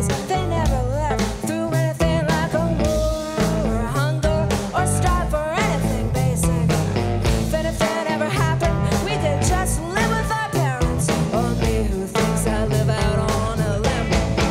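A live rock band playing: a woman singing over electric guitar, electric bass and drums.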